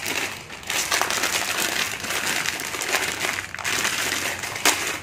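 Plastic instant-noodle packaging crinkling and crackling as it is torn open and handled, continuously, with one sharper crackle near the end.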